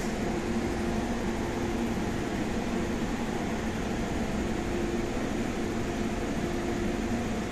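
Steady mechanical hum of a stationary, powered-up MTR Tung Chung Line A-Train: air conditioning and auxiliary equipment running, a few steady tones over an even whir.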